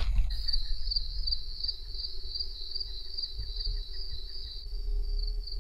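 An insect chirping in a steady, rapid pulsing rhythm, high-pitched, over a low rumble of handling noise from the microphone.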